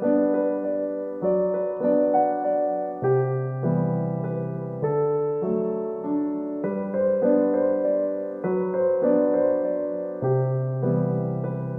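Background piano music, slow and gentle, with held chords changing about every second or two.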